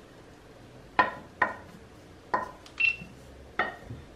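Wooden spatula knocking against a nonstick frying pan and the plate while grated coconut is scraped into the pan: five sharp clinks with a short ring, starting about a second in and spaced roughly half a second to a second apart.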